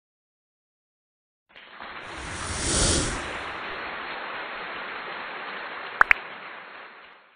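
Outro sound effects: a swelling whoosh with a low boom about three seconds in, followed by a steady hiss, and a quick double click near the end as the hiss fades out.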